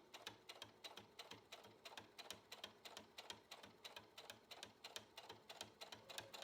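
Domestic sewing machine stitching through felt at a slow, even pace: a faint, steady run of quick ticks from the needle mechanism.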